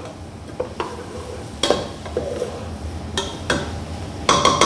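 A metal spoon stirring sliced onions with carrot and celery as they soften in a stainless steel saucepan: a steady scraping stir with light sizzling, broken by a few sharp knocks of the spoon against the pan, which ring briefly near the end.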